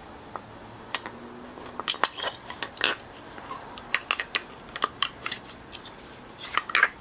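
Metal parts of a stripped Delphi common-rail diesel injection pump clinking and knocking together as they are handled: the splined driveshaft and its bearing housing being turned and fitted against the pump body. The knocks come in a scattered string of light taps, some with a short metallic ring.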